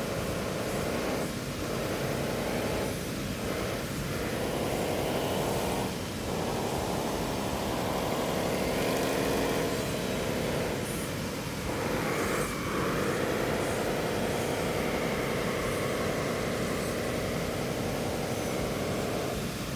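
Radio-controlled scale model wheel loader working in sand: a whining motor sound that rises and falls in pitch as it drives and lifts its bucket. It drops out briefly several times, most clearly about twelve seconds in.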